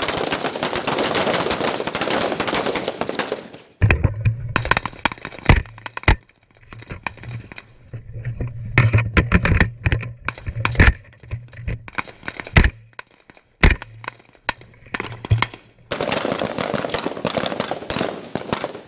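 Rifle gunfire on a firing line: many rifles firing at once in a dense, overlapping crackle at the start and again near the end, with separate sharp single shots in between.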